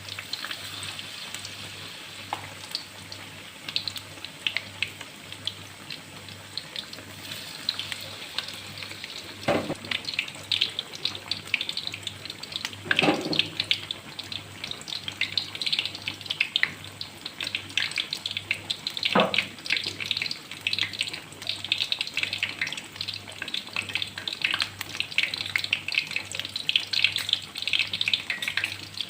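Shrimp in flour batter frying in hot oil, a dense sizzling crackle that grows thicker about ten seconds in, with a few sharp knocks, such as a utensil against the pan.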